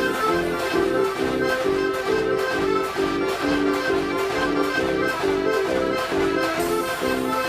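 105-key Decap dance organ playing a tune: reedy, accordion-like chords repeated in a steady rhythm over regular percussion beats.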